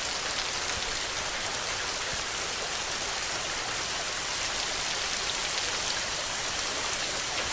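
Steady rainfall: an even, unbroken hiss with fine ticks of individual drops.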